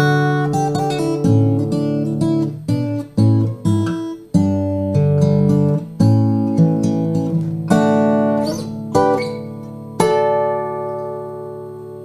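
Emerald X20 carbon-fibre acoustic guitar played fingerstyle: a run of picked notes and chords, ending on a chord left to ring and slowly fade for about two seconds.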